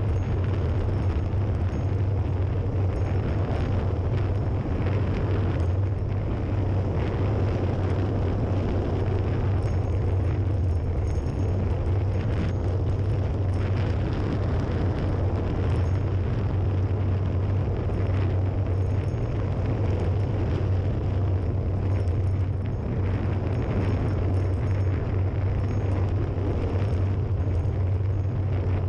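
Steady roar of wind blasting the microphone of a camera riding downhill at speed, heavy and low, with no break.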